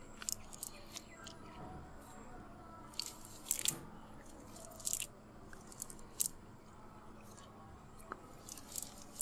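A wet fishing net being shaken and picked through by hand on mud: irregular short crunchy rustles and squelches of mesh, mud and leaves, the loudest about three and a half and five seconds in.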